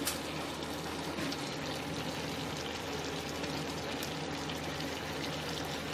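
Soya chunk curry simmering in a pan, the gravy bubbling and crackling steadily.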